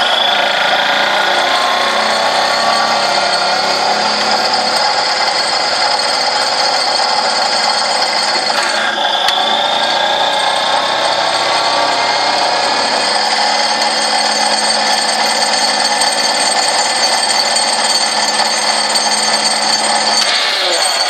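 Vibro impact ripper on a 15-ton excavator working, a loud continuous vibrating whine with several steady high-pitched tones. It breaks off briefly about nine seconds in and again near the end.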